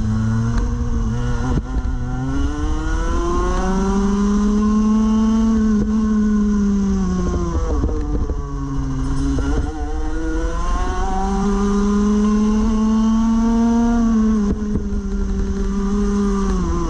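Rotax Max Evo Senior 125cc two-stroke single-cylinder kart engine at race pace, heard from the driver's seat. The revs climb out of a corner, hold high along a straight, then fall under braking about seven seconds in. They climb and hold again before falling near the end.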